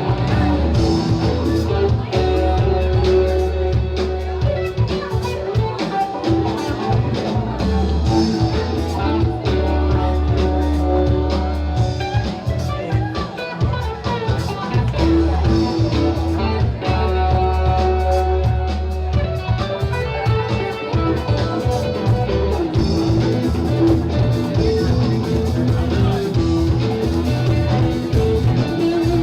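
Band music with guitar and a deep, sustained bass line.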